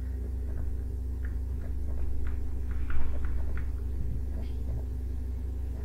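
Steady low electrical hum with faint scattered short ticks, one a little louder about three seconds in.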